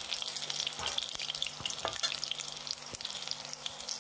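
Banana-flower fritters frying in hot oil in a wok: a steady crackling sizzle, with a few sharp clicks of a metal spatula against the pan as they are turned.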